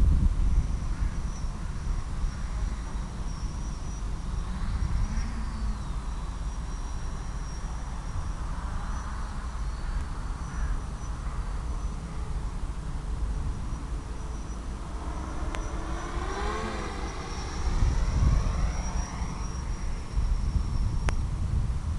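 Small electric motor of an FPV model aircraft running, with heavy wind rush; about two-thirds of the way through, the motor's pitch swells up and falls back as the throttle changes.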